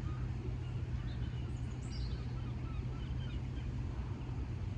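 Steady low outdoor rumble with a constant hum underneath, and a few faint bird chirps about one and a half to two seconds in.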